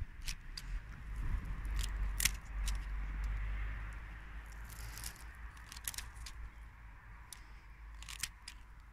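Gardena 608 bypass secateurs snipping thin dry twigs: a string of sharp clicks and crunches as the blades close, with rustling of stems and leaves.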